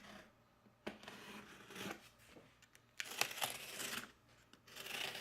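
Cardboard box and packaging being handled and opened: three bursts of rustling, scraping and tearing noise, each about a second long, the later two the loudest.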